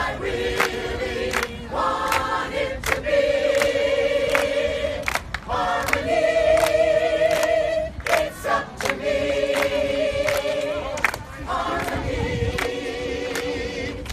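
A group of voices singing together in unison, holding long wavering notes, with steady hand claps on the beat about once a second.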